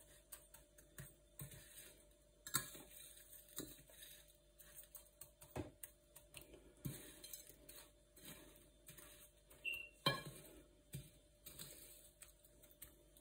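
Metal fork clinking and scraping against a glass plate while potato balls are rolled in their coating: scattered light taps, the loudest about two and a half seconds in and again about ten seconds in.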